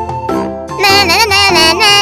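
Cheerful children's background music with steady notes; about a second in, a high wavering voice-like melody joins over it and becomes the loudest part.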